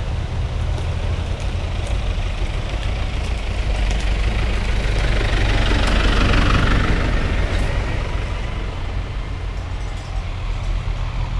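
Diesel engine of a modern cab tractor driving past, getting louder as it passes about halfway through and easing off afterwards, over the steady low drone of another tractor further down the lane.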